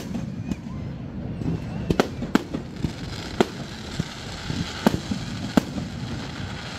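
Aerial fireworks shells bursting: about seven sharp bangs at uneven intervals, with a steady hiss underneath from about a second and a half in.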